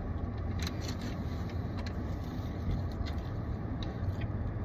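Steady low hum of a running car, heard from inside, with a few faint clicks and rustles.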